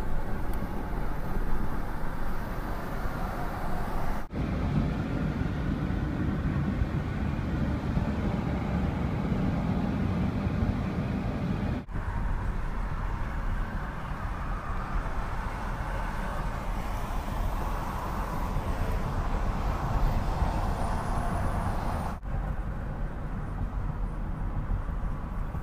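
Steady road and engine noise heard from inside a car's cabin while driving at highway speed, broken three times by a brief dropout where the recording is cut.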